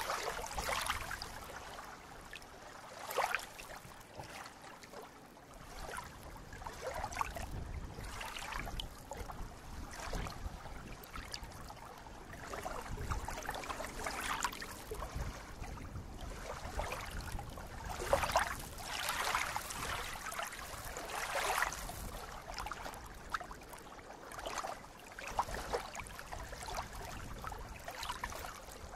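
Small lake waves rippling and lapping in shallow water among reeds, in irregular splashes a second or two apart, a few louder around two-thirds of the way through.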